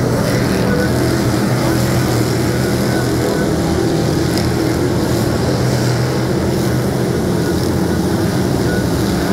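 Engines of a pack of dirt-track race cars running at speed around the oval, several engines sounding together in one steady, loud, unbroken mass.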